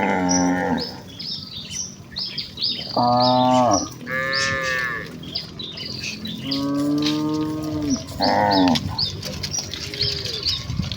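Village cattle mooing in turn: about five long calls, one of them higher-pitched than the rest.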